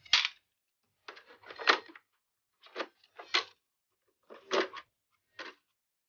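Small hard parts and tools clicking and clattering on a workbench during console disassembly. There are about six short bursts of clicks, the sharpest right at the start.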